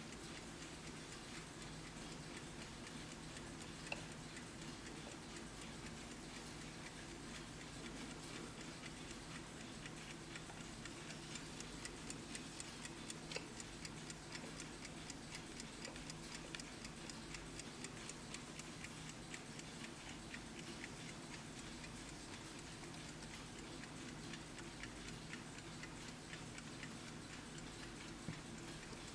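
Vintage 1970s Rhythm chrome pedestal alarm clock ticking steadily and quietly, several ticks a second, over a faint steady hum, with an occasional louder click.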